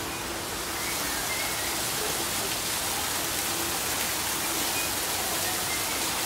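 Steady noise of water running in a small rock-lined stream.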